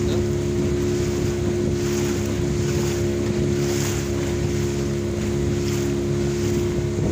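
Small fishing boat's engine running at a steady speed, with water rushing and splashing along the hull and wind buffeting the microphone.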